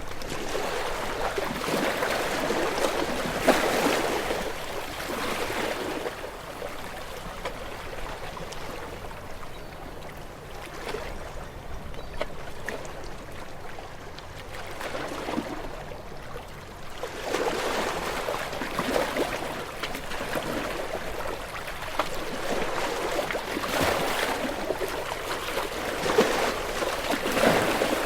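Small waves washing onto a shore: rushing, hissing water that swells and fades over several seconds at a time, with a quieter stretch in the middle.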